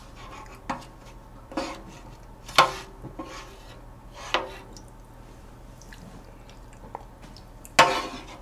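Wooden ladle stirring and scooping chicken broth in a large pot, with about six sharp knocks of the ladle against the pot and liquid sloshing; the loudest knocks come about two and a half seconds in and near the end.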